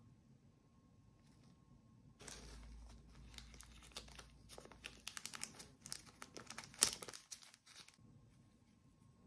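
Plastic packaging crinkling and tearing as it is unwrapped from a drone accessory. A dense, irregular run of crackles starts about two seconds in and stops about eight seconds in, with one sharper, louder crackle near the end.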